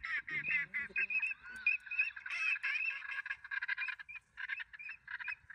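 Many birds calling at once: a continuous chatter of short, rapid, overlapping calls.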